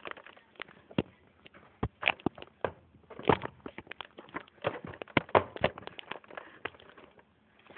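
Sheets of paper being handled and folded by hand: irregular crinkling and crackling, busiest in the middle.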